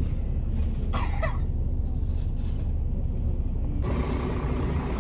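Steady low rumble, with a short voice-like sound about a second in; the background changes abruptly almost four seconds in.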